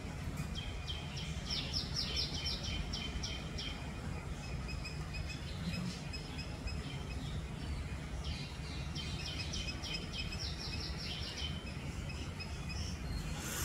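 Drongo calling: two runs of rapid, high chirping notes, several a second, the first starting about a second in and the second about eight seconds in, over a steady low background rumble.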